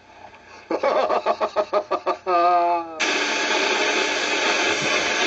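A person's voice in quick rhythmic pulses, then a held, wavering note. From about three seconds in, a loud steady whirring of a small electric motor and propeller takes over.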